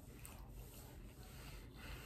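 Faint mouth and breathing sounds of someone chewing cornstarch, with a soft click about a quarter second in.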